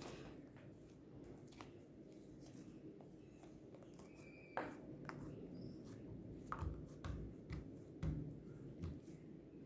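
Faint handling noises from hands working a finished fluffy slime: scattered soft thumps and small clicks, with a brief squeak about four and a half seconds in.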